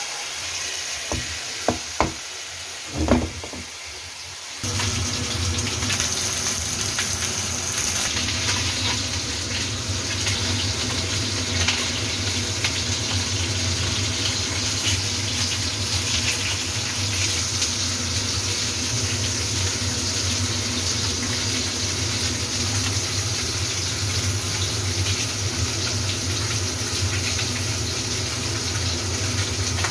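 A few sharp knocks over a quiet sizzle, then from about five seconds in a steady rushing, bubbling cooking noise with a low hum underneath, from a pot of tomato stew cooking on the hob.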